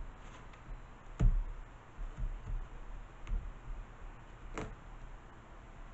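A few separate clicks and light knocks from an X-Acto hobby knife being worked into a small wooden part on the bench, the loudest about a second in and another a little before the end. The blade is dull.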